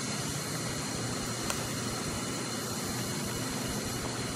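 Steady mechanical hum and hiss, with one faint click about a second and a half in.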